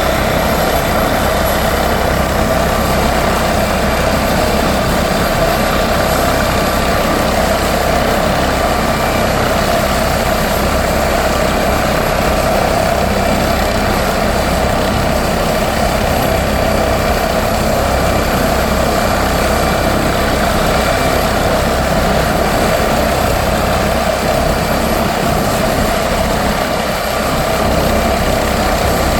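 MD 902 Explorer twin-turbine NOTAR helicopter running at a steady, even level: a continuous turbine whine over the low beat of the main rotor.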